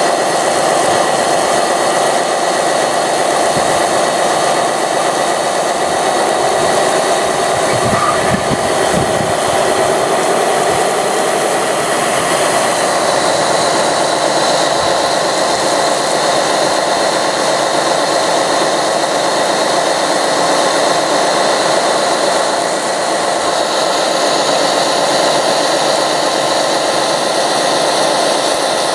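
Steady whine of small electric motors over a loud, even hiss. The pitch dips and rises once about a third of the way through.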